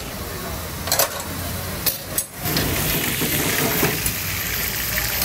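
Mutton karahi sizzling in a steel wok over a gas burner, a steady hiss, with two sharp metal clinks in the first two seconds. The sound drops out briefly a little after two seconds, then the hiss returns fuller.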